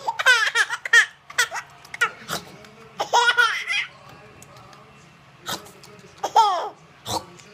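Baby laughing loudly in high-pitched bursts, a few cackles at a time with short pauses between them.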